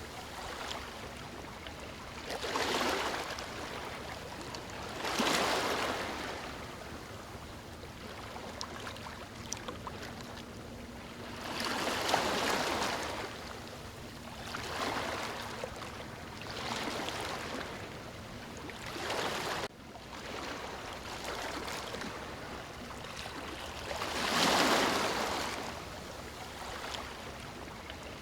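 Ocean surf breaking on a beach: waves surge and hiss up every few seconds over a steady wash, the strongest about a third of the way in and near the end. The sound briefly cuts out about two-thirds of the way through.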